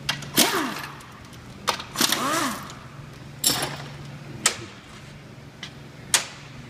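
Hand tools working the oil pan bolts off a GM Turbo 400 transmission with a 13 mm socket: a series of irregular sharp metal clicks and knocks, over a steady low hum.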